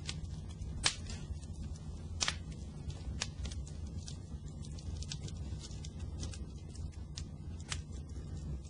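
Fire crackling: irregular sharp pops over a steady low rumble, the loudest pops about one and two seconds in.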